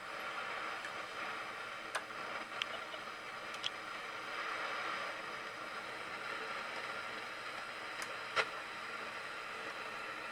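Fender Super Reverb tube guitar amp hissing through its speakers, with a handful of sharp crackles and pops, the loudest about eight seconds in. It is the crackling fault that cleaning the contacts has not fully cured.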